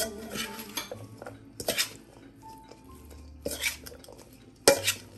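A metal spoon scrapes and clinks against a stainless steel mixing bowl while stirring shredded chicken and diced celery. There are several separate strokes, and the loudest clank comes near the end.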